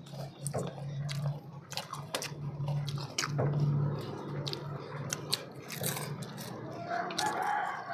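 People eating: crunching on fried crackers (kerupuk) and chewing, with spoons clicking and scraping on earthenware plates as irregular sharp clicks, over a steady low hum.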